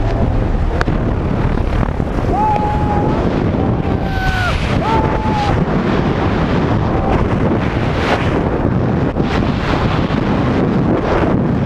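Freefall wind rushing hard over the camera microphone during a tandem skydive, a steady loud roar of air.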